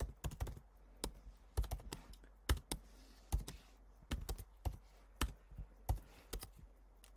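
Typing on a computer keyboard: separate key clicks at an irregular pace, a few per second with short pauses between them.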